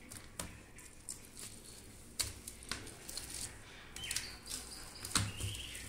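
Metal potato masher pressing boiled potatoes on a steel plate: soft mashing with scattered light taps of metal against the plate.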